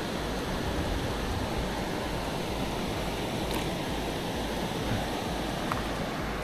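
Steady rush of flowing stream water, with a couple of faint ticks partway through.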